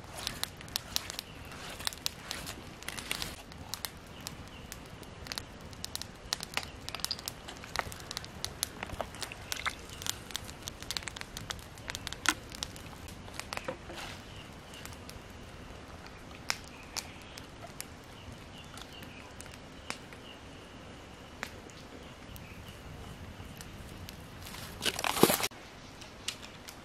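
Irregular clicks and scrapes of a metal spoon stirring in a steel bowl. A louder scuffling rustle about half a second long comes near the end.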